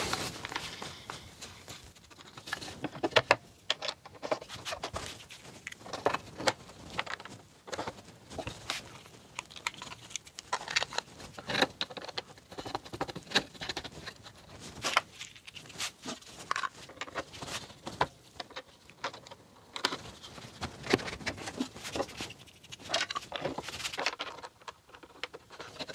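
Irregular light knocks, clicks and clinks of wooden steady-rest parts and their metal hardware being handled and fitted together by hand on a wood lathe.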